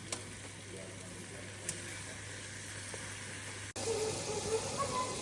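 Food sizzling as it fries in hot oil: a steady hiss over a low hum, with a couple of light clicks, growing louder about three and a half seconds in.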